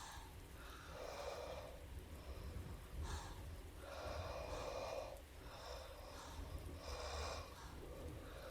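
A sleeping woman snoring: about four noisy, snorting breaths a second or two apart, the one near the middle the longest.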